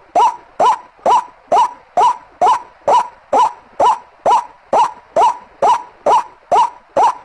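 White-breasted waterhen (ruak-ruak) lure call: a single short, hoarse note repeated at an even pace, a little over twice a second.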